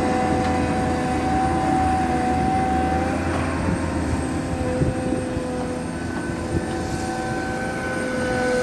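ATLAS 3306 crawler excavator's diesel engine and hydraulics running under load as the bucket digs and curls through soil: a steady engine drone with a whine over it, a higher whine joining about six seconds in, and a few small knocks from the digging.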